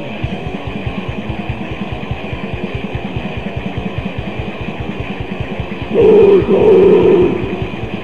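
Lo-fi death metal played from a 1992 demo cassette: distorted guitar over a fast, even drumbeat, getting much louder about six seconds in.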